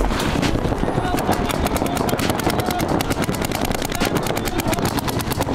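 Shocker Era electronic paintball marker firing rapid strings of shots, a fast run of sharp pops.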